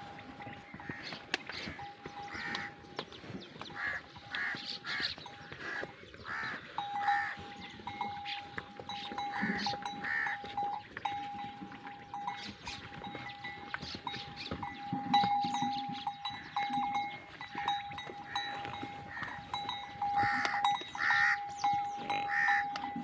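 Livestock calling repeatedly, with short calls coming every second or so, over a steady high tone that runs almost without a break.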